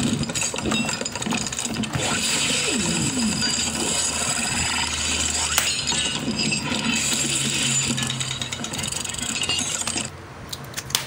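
Plastic action-figure parts and cardboard packaging being handled, with a busy run of clinks, clicks and rustling that drops off sharply about ten seconds in.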